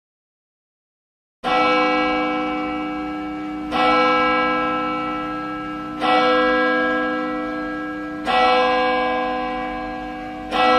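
Church bell tolling slowly: five strokes about two and a quarter seconds apart, starting about a second and a half in, each ringing on and fading until the next stroke.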